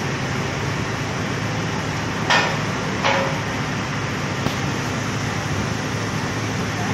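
Steady machine hum with two sharp metallic clanks, a little under a second apart, about two seconds in.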